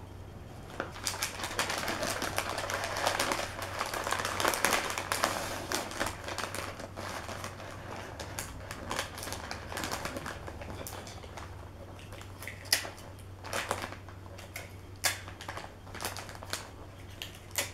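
Wrapping paper crinkling and rustling as it is folded and creased around a package: a dense stretch of crackling for the first several seconds, then scattered sharp crinkles and clicks.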